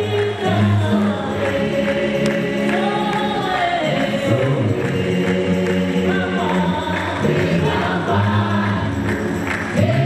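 Gospel-style choir music: several voices singing together over a steady low bass line.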